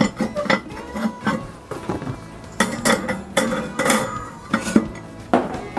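Metal and ceramic clinks and knocks as the Kamado Joe Junior's lid setter and round metal cooking grate are set into the grill, with several sharp clinks close together about halfway through. Background music plays underneath.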